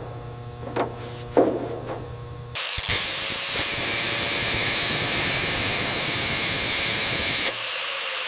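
A few light taps over a low hum. About two and a half seconds in, an angle grinder starts grinding the metal fuselage skin, a loud, steady hiss that cuts off suddenly about a second before the end.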